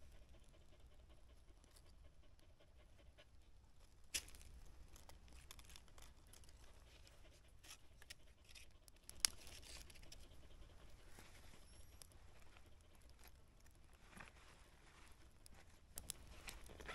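Near silence, with a few faint sharp clicks and rustles, the clearest about four and nine seconds in and a small cluster near the end.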